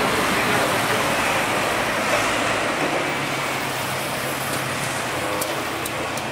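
Jet airliner engines: a steady rush that slowly fades.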